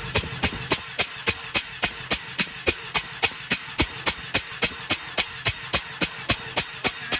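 Mazda RX-8's two-rotor Renesis rotary engine cranked over on its starter for a compression test: an even pulsing of sharp puffs, about three and a half a second, over a steady starter hum.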